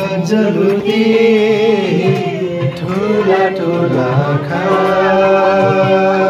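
Music: a song with a solo voice holding long, wavering notes over a steady accompaniment.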